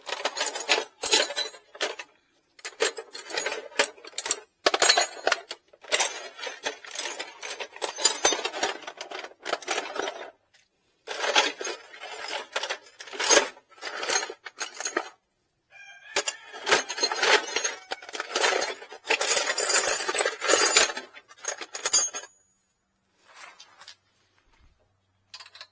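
Loose metal hand tools clattering and clinking in irregular bursts, like rummaging through a box of tools, dying away about four seconds before the end.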